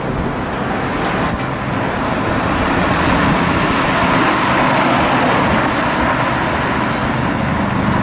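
Road traffic: car engine and tyre noise, growing louder over the first three seconds and then holding steady.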